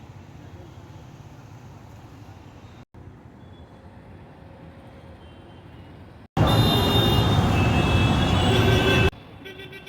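Road traffic running steadily: engines and tyres of passing cars, buses and trucks. The sound cuts out twice. About six seconds in, a much louder stretch of traffic lasts around three seconds, with high steady tones over it.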